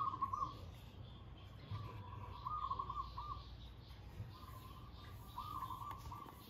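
A bird calling: a short phrase of quick up-and-down notes, repeated three times a few seconds apart.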